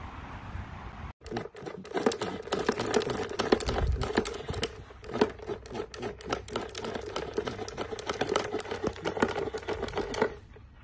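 Water jets from a garden sprinkler pad spraying and spattering against a dog's snapping mouth, a dense crackling spatter that starts about a second in and stops just before the end.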